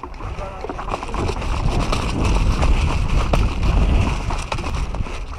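Wind and movement rumbling on a body-worn action camera's microphone as the wearer moves quickly over a gravel path, building about a second in, with scattered knocks of footsteps and gear.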